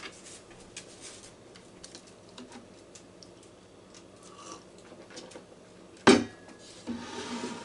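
Faint small handling clicks, then a plastic drinking tumbler set down sharply on the countertop about six seconds in, followed by a short hiss.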